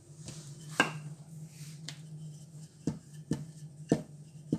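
About six sharp knocks and taps of kitchen work at the countertop, a wooden rolling pin rolling out dough among them, over a steady low hum.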